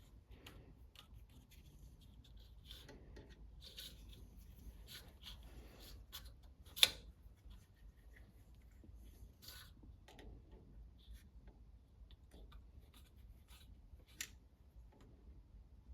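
Light handling noises while setting up a lathe: scattered faint clicks and rubbing, with one sharp click about seven seconds in and a smaller one near fourteen seconds.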